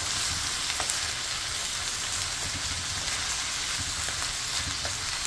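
Sliced onions sizzling steadily as they fry in hot oil in a metal kadhai over a high flame, with a few light knocks of a wooden spatula stirring them.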